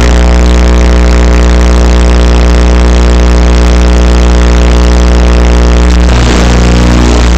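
Small engine of a radio-controlled car idling steadily while the car stands still, very loud on its onboard microphone; the steady note breaks up and wavers about six seconds in.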